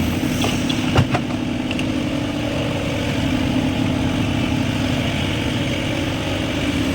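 An engine idling steadily, with a single sharp knock about a second in.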